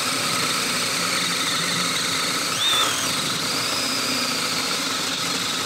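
Milwaukee 2801-20 brushless drill driver in high speed, boring a 1-inch spade bit through a wooden board. The motor runs steadily under load as the bit cuts the wood.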